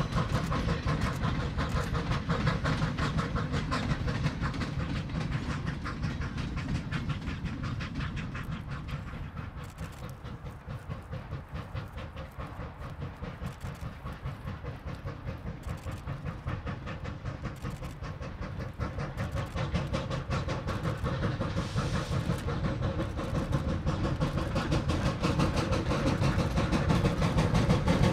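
Replica Civil War-era 4-4-0 steam locomotive working under steam, its exhaust beating rapidly. The sound dips about a third of the way in, then grows steadily louder as the train approaches.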